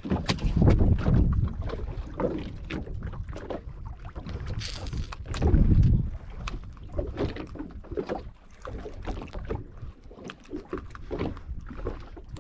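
Water slapping and knocking against the hull of a small open fishing boat drifting at sea, with scattered clicks and knocks. Wind gusts on the microphone, loudest about a second in and again around six seconds.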